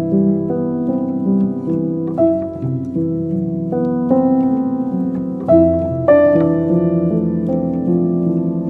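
Background music: a piano-like melody with plucked notes over sustained chords.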